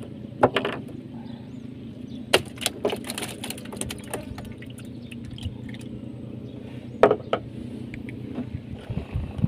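A motor hums steadily and low. Several sharp clicks and knocks sound over it: one about half a second in, a cluster around two and a half to three seconds in, and two about seven seconds in.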